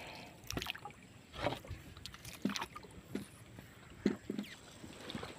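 Narrow wooden canoe moving through shallow water: a handful of short, irregular knocks and splashes against the hull.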